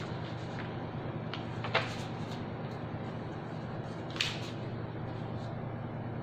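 Steady room noise with a low hum, broken by two brief sharp knocks or clicks, one nearly two seconds in and one about four seconds in.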